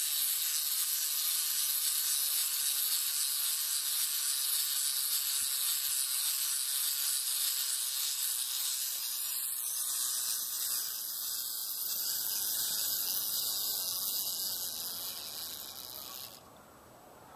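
Small clockwork wind-up toy whirring steadily as it walks, a high buzzing that cuts off suddenly near the end.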